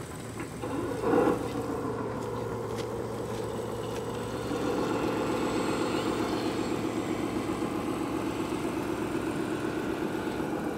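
Radio-controlled model construction machine running, a steady mechanical drone with a fast pulsing texture that grows a little louder about four and a half seconds in.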